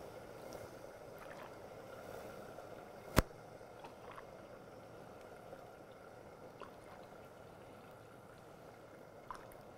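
Hot chicken broth poured from a glass onto toasted rice in a pan on the hob and stirred with a wooden spoon, making a faint steady simmering, with one sharp click about three seconds in.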